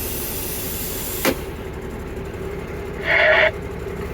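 Diesel dump truck engine idling with a steady low rumble. A loud hiss of air runs for the first second or so and ends with a click. About three seconds in there is a brief pitched tone.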